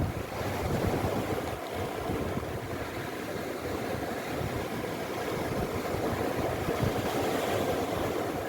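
Steady rush of the sea, with no separate wave breaks standing out, and wind buffeting the microphone.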